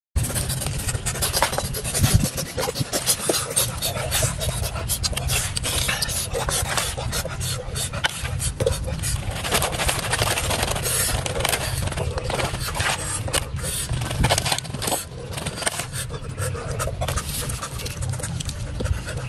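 Scraping of a blade inside a hollowed-out watermelon rind as the flesh is dug out: a rapid run of short, uneven scraping strokes over a steady low hum.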